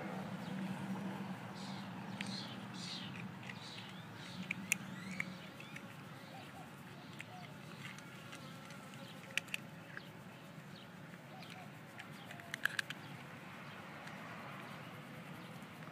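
A cat eating dry kibble from a plate, with a few sharp crunches, while a buzzing insect hums close by for the first five seconds or so.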